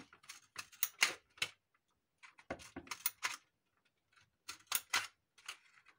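Scissors snipping into plastic bottle pieces: a run of sharp clicks in three groups with short pauses between.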